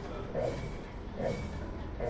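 Consul Facilite 11 kg washing machine agitating a load of clothes, the water swishing in even strokes a little under a second apart.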